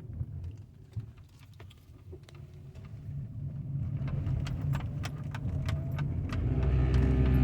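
2013 Ford Fusion Hybrid making a low rumble that dies down for a couple of seconds, with scattered sharp ticks and rattles. About six seconds in, a steady low hum with several tones sets in. This is the buzzing or vibrating noise the owner is trying to trace.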